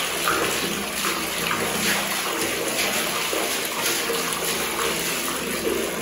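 Tap water pouring steadily into a full plastic bucket while a mop is swished around in it to rinse it.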